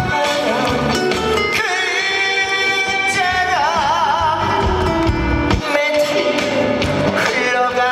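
Live trot song with band backing: a singer holds long notes with a wide vibrato, with pitch glides between them.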